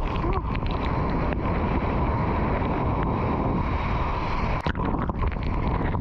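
Water rushing and splashing around a surfer riding a wave, with wind buffeting the action camera's microphone and sharp splashes here and there.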